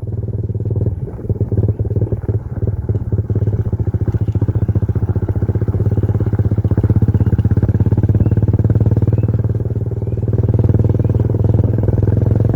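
An engine running steadily close by, with a fast, even firing pulse; it cuts off suddenly at the end.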